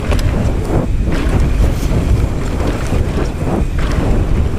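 Wind buffeting the microphone over the rumble of a 2019 Transition Smuggler 29er mountain bike rolling fast down a dirt trail, with scattered clicks and rattles from the bike.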